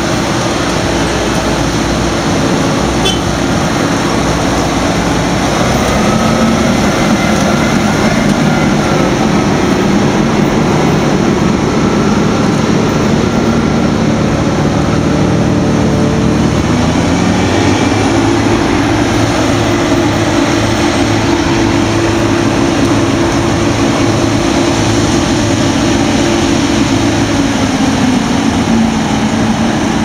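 Claas Lexion combine harvester's diesel engine running loud and steady close by, its note rising a little over halfway through as it picks up revs.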